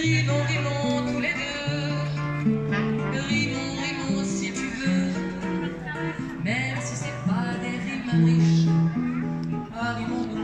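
Music led by an acoustic guitar, playing steadily.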